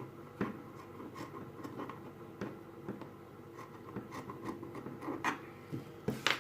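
Handling noise: fleece fabric pieces rubbed and moved about, with scattered soft clicks and taps.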